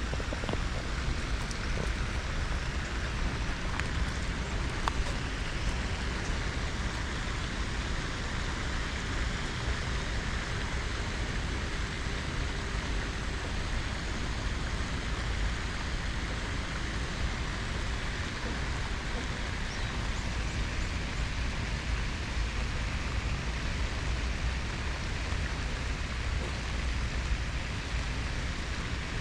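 Steady rain falling, an even hiss of drops with a constant low rumble underneath.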